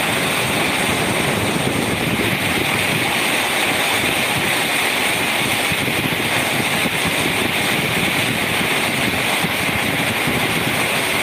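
Moderate rain falling steadily: an even, continuous hiss of rain on a corrugated metal shelter roof and wet road.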